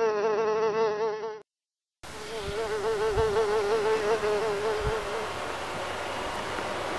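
A buzzing insect: a wavering buzz with a quick, regular wobble in pitch. It cuts out briefly about a second and a half in, comes back, and fades out around five seconds in. A steady rushing noise grows louder toward the end.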